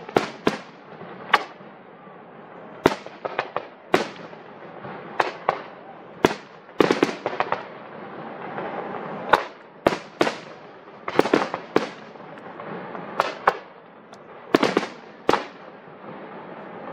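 Aerial fireworks shells bursting in irregular succession: sharp bangs, often two or three close together, each trailing off in an echo.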